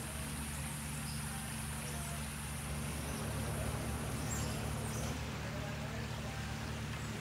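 Outdoor ambience: a steady low hum with a high, even buzz above it that stops about five seconds in and comes back near the end, and a few faint short chirps.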